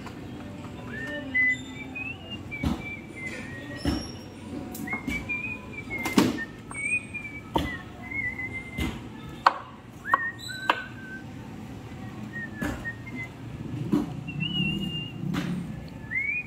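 A butcher's knife knocking sharply against a wooden chopping block every second or so while beef is cut, with high, sliding whistled notes in between.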